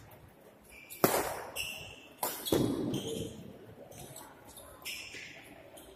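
Badminton rackets striking a shuttlecock in a rally, several sharp hits echoing in a large hall. The loudest hit comes about a second in, and further hits and shorter ticks follow.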